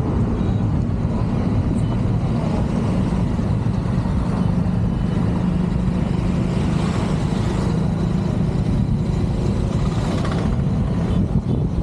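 Steady road noise of a car driving along a city street: a heavy low rumble of tyres and wind, with the hiss of surrounding traffic swelling a little around the middle and again near the end.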